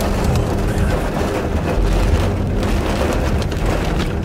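Heavy rain and gusting wind of a severe thunderstorm, with a steady low rumble beneath and scattered small ticks of raindrops.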